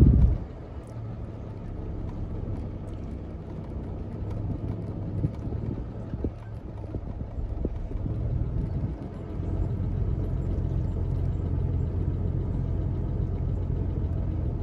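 Car engine running with a low, steady hum, heard from inside the car, getting a little louder about nine seconds in. A brief loud thump comes right at the start.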